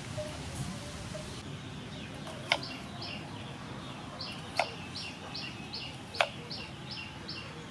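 Kitchen knife slicing through bitter gourd and knocking on a wooden chopping board, three sharp chops about two seconds apart. A bird chirps repeatedly in the background, short high calls about three a second.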